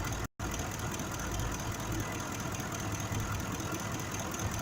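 Ford 5.4 V8 idling steadily with a misfire in cylinder 2, caused by an injector that fires electrically but fails mechanically. The sound drops out completely for a moment about a third of a second in.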